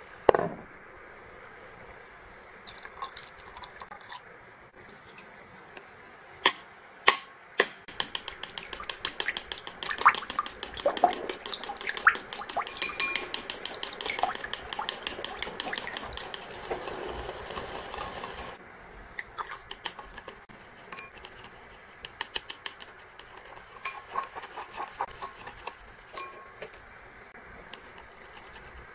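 Wooden chopsticks beating egg yolks in a ceramic bowl: quick clicking of the sticks against the bowl, fast and dense through the middle, then lighter and sparser near the end. A single sharp knock comes just after the start.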